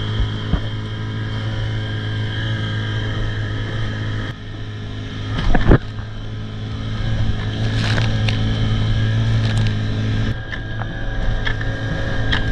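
Outboard motor of a small inflatable boat running at speed, with the hull slapping across chop and wind on the microphone; one loud slap comes about five and a half seconds in.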